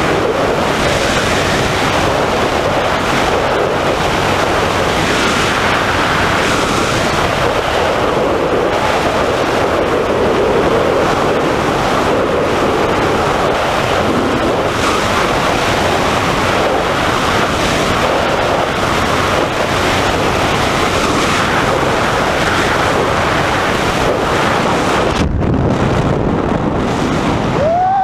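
Loud, steady rush of wind over the camera microphone during a tandem skydive freefall at about 200 km/h. About 25 seconds in, the high hiss drops away and a lower rumble takes over.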